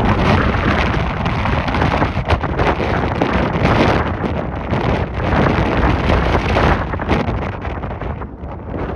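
Strong wind gusting and buffeting the microphone: a loud, rushing rumble that swells and eases, a little quieter near the end.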